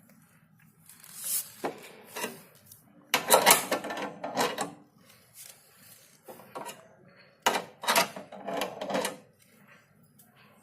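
Car jack being cranked down to lower the car: irregular bursts of metallic rattling and scraping, the loudest about three to four and a half seconds in.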